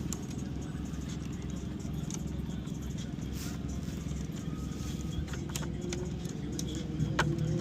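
Steady drone of vehicle engines running, with a few sharp clicks of hand tools on metal in the second half. A louder engine note comes in near the end.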